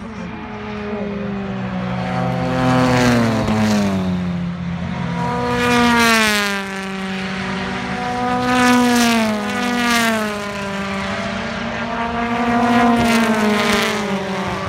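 Touring cars racing past on the circuit, their engines repeatedly climbing and dropping in pitch as they accelerate and go by, several times over.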